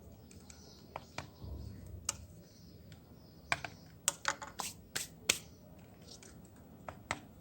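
Scattered sharp clicks and light taps of small hard parts as hair clipper blades are handled and adjusted by hand, with a quick run of clicks in the middle. The clipper motor is not running.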